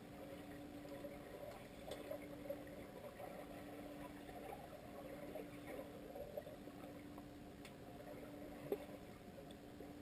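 Muffled underwater sound in a swimming pool: faint water movement from swimmers kicking with fins, over a steady low hum, with a few faint clicks.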